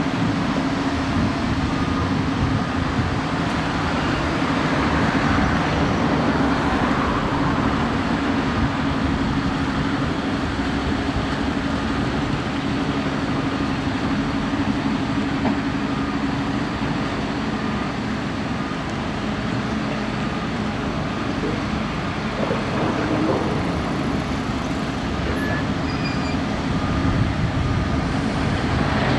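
JCB backhoe loader's diesel engine running steadily as it manoeuvres a low-loader trailer, a constant low drone with one steady tone.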